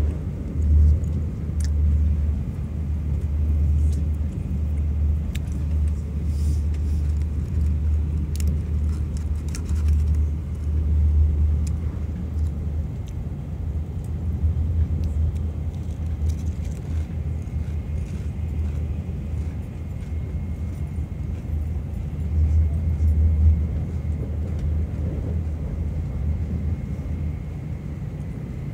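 Steady low rumble of a Shinkansen bullet train running at speed, heard from inside the passenger car, with scattered faint clicks. A faint, high, steady whine joins a little past halfway.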